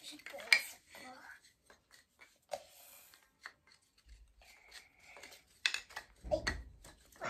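Wooden toy train track pieces clicking and knocking together as they are handled and fitted, with scattered sharp taps, the loudest about half a second in, and a dull thump near the end.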